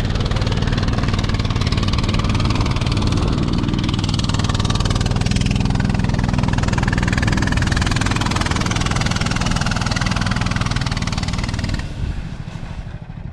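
Small engine of a motorized snow tow idling steadily with a low rumble, then dropping away sharply near the end.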